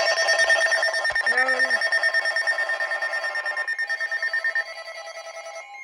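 Several NOAA weather radios sounding their alert tones at once, a dense overlap of rapid electronic beeps at different pitches. Some of the radios fall silent partway through, and most stop near the end.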